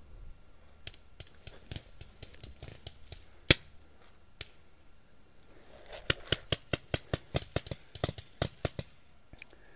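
Paintball marker shots: one sharp shot about three and a half seconds in, then a rapid string of about a dozen shots, four or five a second, in the last few seconds. Fainter scattered pops come before.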